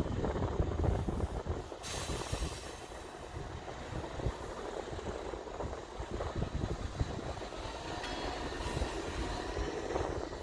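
Yellow self-propelled track maintenance vehicle with a flat wagon rolling slowly along the rails, its engine and wheels giving a steady low rumble, with two brief hissing surges, about two seconds in and near the end.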